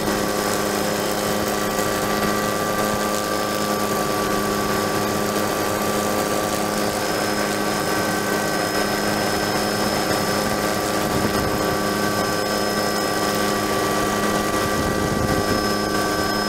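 Helicopter engine and rotors running steadily, heard from on board: a constant drone with several high whining tones that hold one pitch.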